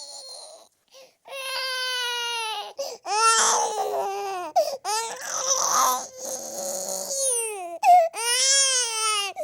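Baby boy crying hard: a series of about five long, pitched wails, each broken off by a quick gasp for breath, after a short pause near the start.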